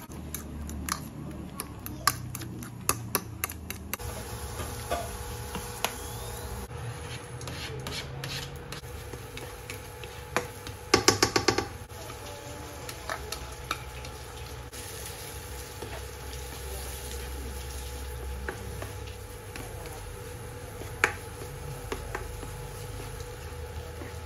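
A metal spoon clicking and scraping against a ceramic bowl as cooked rice is mixed with egg yolk, then a quick run of about six loud sharp knocks around eleven seconds in as the bowl is emptied into a nonstick wok. After that, a spatula stirs and scrapes the rice in the wok over a steady faint hum.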